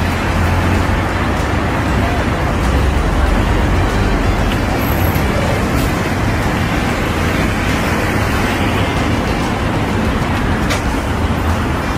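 Steady city street noise: a low traffic rumble under a general urban din.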